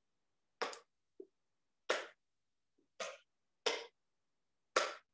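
A spatula scraping thick cake batter out of a glass mixing bowl into a glass baking dish: five short strokes about a second apart, with silence between.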